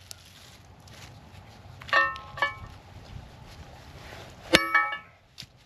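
Hammer blows on steel, driving out an old pressed-in front wheel bearing without a press. Four sharp metallic strikes, each ringing briefly: two about two seconds in, then another pair near the end.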